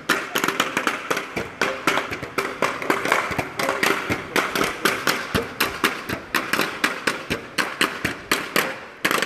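Hand-held wooden blocks clacked in a fast, uneven percussion rhythm: many sharp, dry clacks a second.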